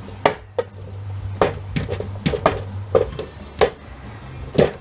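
A series of sharp knocks and clacks from scrap metal parts being handled during disassembly, about nine irregular strikes, over a steady low hum.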